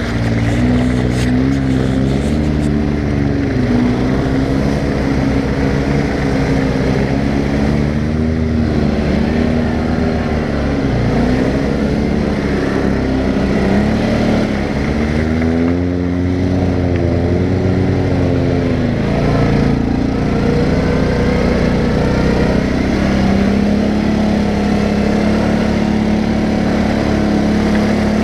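CFMoto 500A quad's single-cylinder engine, heard close up from the rider, revving up and easing off over and over as the throttle is worked through mud. Wind and tyre noise run underneath, and the engine holds a steadier, higher note toward the end.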